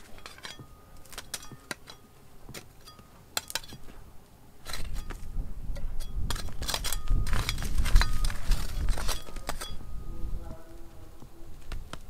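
Small metal hand trowel clinking and scraping against loose stones and gravel, with stones knocking together in sharp clicks. A denser stretch of scraping runs from about five to ten seconds in.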